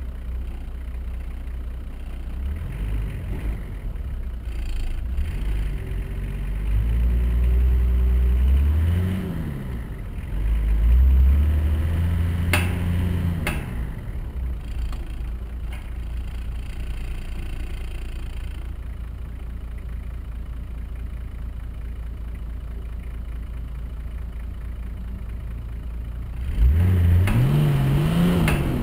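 Nissan Patrol's diesel engine revving up and dropping back several times as the 4x4 crawls over rough off-road ground, settling to a steady low running in between and revving up again near the end. Two sharp knocks are heard near the middle.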